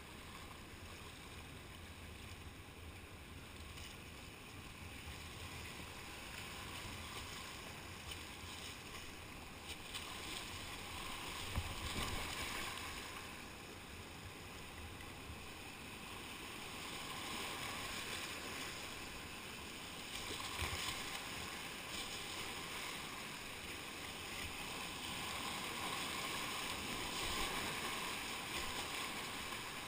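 Whitewater rushing around a kayak running a rapid, with paddle strokes and waves splashing against the boat. The rush grows louder about ten seconds in, eases, then builds again through the last third, with a few sharp splashes.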